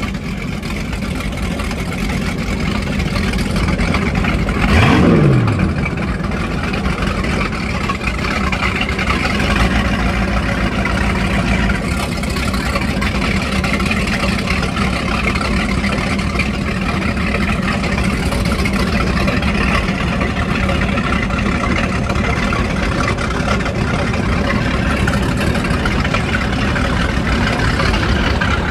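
Motorboat engines running at slow, idle-speed pace, a steady low rumble. About five seconds in, a louder whine slides quickly down in pitch.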